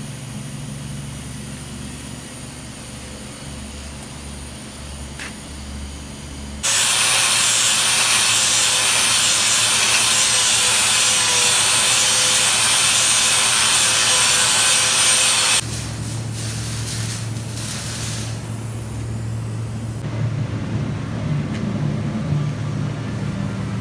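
Welding arc on steel: after several seconds of a steady low hum, a loud, even hissing crackle starts suddenly, runs for about nine seconds and stops abruptly, then the low hum carries on.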